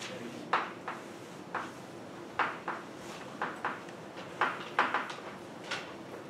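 Chalk writing on a blackboard: a string of irregular short taps and scratches as the chalk strikes and drags across the board.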